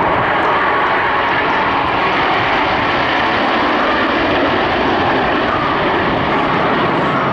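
Canadair CT-114 Tutor jets of the Snowbirds team flying over, a loud, steady rush of jet engine noise.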